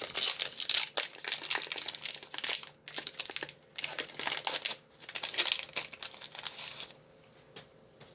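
Foil wrapper of a Pokémon booster pack crinkling as it is handled and torn open, a dense crackling that stops about seven seconds in.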